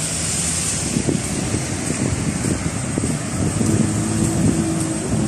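Street noise with a motor vehicle's engine running close by.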